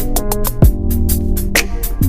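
Background music with a steady beat: quick hi-hat ticks over sustained pitched notes and a deep bass.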